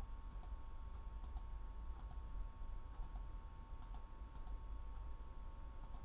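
Faint, scattered clicks, often in close pairs about once a second: computer keyboard keys tapped slowly, over a steady low hum.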